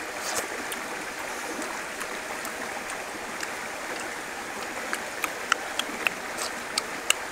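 Steady rush of a flowing stream. Near the end, a few sharp clicks sound as oyster shells are handled and knocked together.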